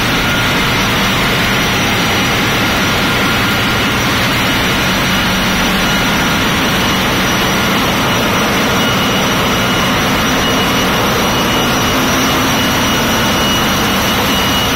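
Loud, steady hum of a container ship's engine-room machinery, a dense low rumble with a few thin steady whines above it.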